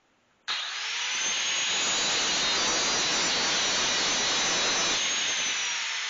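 Electric angle grinder started about half a second in, spinning up with a rising whine, then grinding paint and rust off a steel chandelier arm to clean it for welding. About five seconds in it is switched off and the whine falls as the disc spins down.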